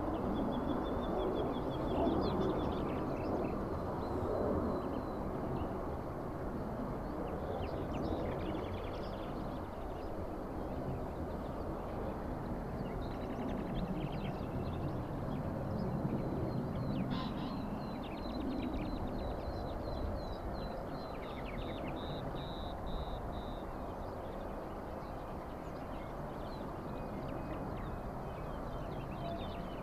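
Small birds chirping and trilling on and off over a steady low rumble.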